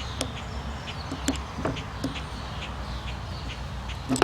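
Scattered light clicks of a screwdriver working screws out of a small electric motor's housing, irregular, several a second.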